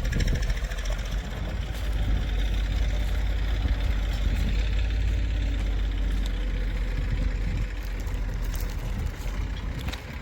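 Heavy diesel engine running steadily, a little quieter near the end.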